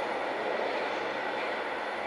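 EN57AL electric multiple unit running along the rails, a steady wheel-and-running noise with no distinct clacks, slowly fading as the train moves away.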